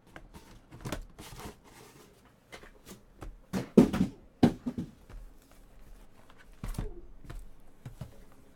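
Cardboard and packaging being handled: scattered clicks and short rustles, with a louder burst of scraping and knocking about four seconds in.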